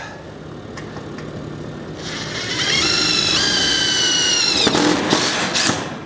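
Cordless drill/driver driving a roofing screw through a steel roof panel: the motor whine starts about two seconds in and steps in pitch as the screw goes in. Near the end it ends in a short rough rattle as the screw seats.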